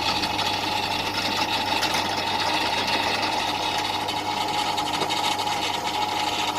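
Titan pillar drill running steadily as a 10 mm drill bit cuts into 4 mm mild steel, lubricated with cutting oil: a constant low motor hum with a steady higher whine over the noise of the cut.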